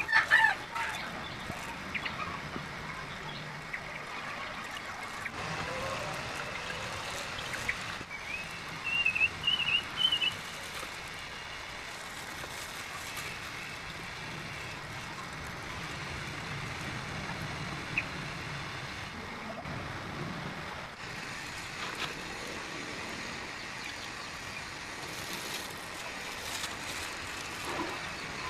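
Liquid pouring and trickling from a plastic bucket through a tissue-lined plastic strainer, filtering out brown sludge. A bird chirps briefly about nine seconds in.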